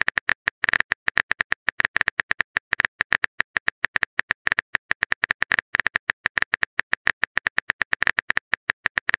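Phone keyboard typing clicks: a rapid, even run of short taps, several a second, as a text message is typed out key by key.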